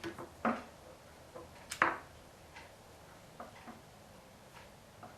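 Sprayer hose being fitted onto the sprayer handle: a series of light clicks and knocks from parts being handled, the loudest a little under two seconds in.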